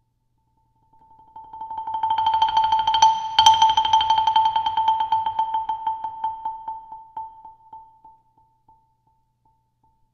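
Yamaha concert marimba played with mallets: a fast roll on a single high note that swells up from silence about a second in. It peaks with one sharp accented stroke near the middle, then fades slowly away near the end.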